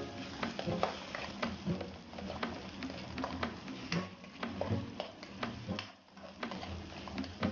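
Plastic spatula scraping and knocking against an aluminium wok, irregular clicks, while stirring onions, garlic and ginger sautéing in oil.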